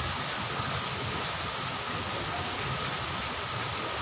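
Rain falling steadily, a continuous hiss of water. A brief thin high tone sounds about two seconds in.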